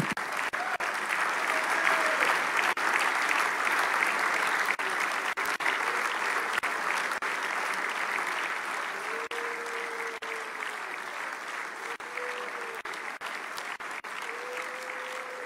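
A roomful of people applauding, loudest a couple of seconds in and then slowly tapering off.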